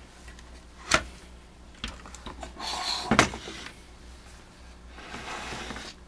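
Knocks, clicks and scraping of a small tube radio being handled and turned over on a workbench, with a sharp knock about a second in and a louder one about three seconds in.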